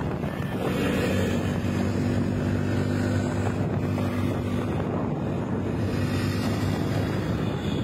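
Motorcycle riding at a steady speed: an even engine hum under heavy wind buffeting on the microphone.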